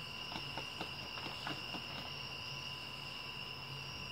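Night insect chorus: a steady, high-pitched, two-toned trilling of crickets, with a few faint taps in the first couple of seconds.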